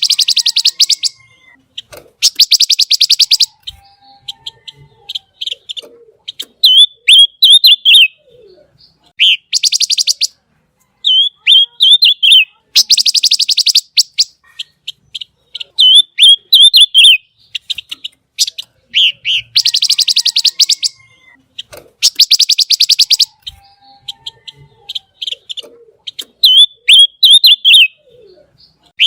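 Pancawarna songbird singing loudly in repeated phrases: runs of very fast, sharp trilling ticks about a second long ('tembakan' and 'besetan'), alternating with quick, sharp warbled chirps.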